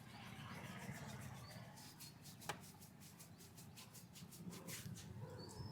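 Faint rubbing and patting of a barber's hands on a customer's scalp and hair during a head massage, with one sharp click about two and a half seconds in.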